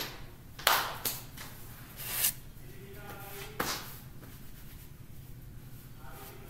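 Handling noise: a few sharp knocks and a rustle that swells and stops, with no clear source.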